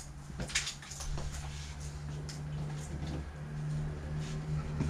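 Scattered light clicks and knocks, as of small objects being handled, over a steady low hum.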